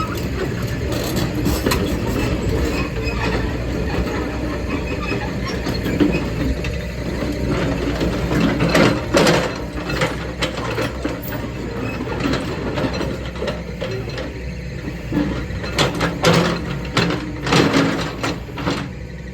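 Sunward SWE90E excavator working: its diesel engine runs steadily under a series of metallic clanks and knocks, which bunch together about halfway through and again near the end.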